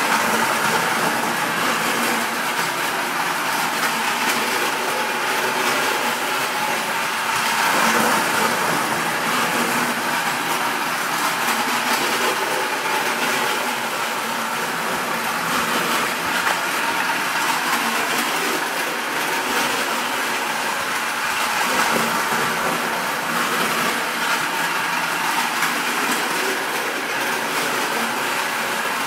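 Battery-powered Distler H0 toy train (TEE Trans Europa Express set) running around toy track: its small electric motor whirring steadily, with the wheels rattling over the rails.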